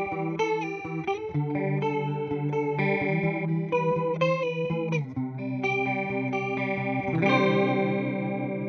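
Electric guitar with two humbuckers played through a Boss CE-2 chorus pedal into a simulated Fender '65 Twin Reverb amp, the chorus giving the tone its shimmer. It plays a run of notes and chord changes, then strikes a chord about seven seconds in that rings on and slowly fades.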